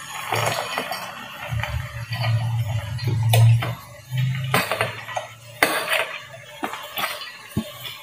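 Pieces of chopped fresh coconut dropping and clinking into a stainless steel mixer-grinder jar as they are tipped off a plastic plate: a scatter of separate sharp clinks, with a low hum through the first half.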